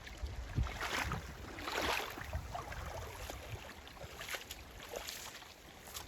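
Creek water running, with louder splashing surges about one and two seconds in, and wind rumbling on the microphone.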